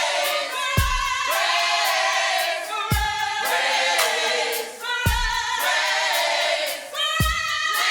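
Youth choir singing a gospel song with a drum kit, a bass drum hit about every two seconds under steady cymbal ticks.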